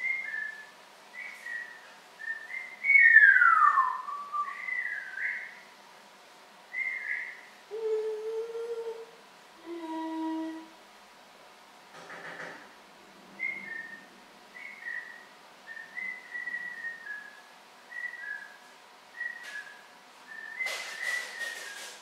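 African grey parrot whistling: a string of short two-note whistles, with one loud whistle gliding down in pitch about three seconds in and a few lower notes. There is a short noisy burst near the end.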